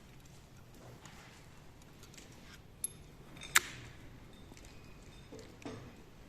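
Metal tools and engine parts being handled, with two sharp metallic clinks about three seconds in, the second louder and ringing briefly, and a few faint knocks near the end.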